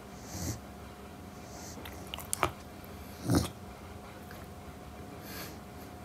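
Chow chow puppy grumbling sleepily on waking: a few short breathy grunts and mouth clicks, the loudest grunt a little past halfway.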